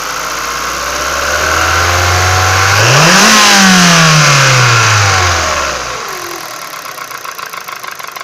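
Kia Ceed JD car engine idling, revved once about three seconds in, then falling back. After about six seconds a rapid, regular knocking is heard: the engine knock the owner is showing.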